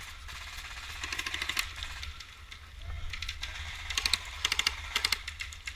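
Airsoft gun fired in short rapid bursts: a quick run of clicks about a second in, then three short, louder bursts near the end. A steady low rumble of wind on the microphone lies underneath.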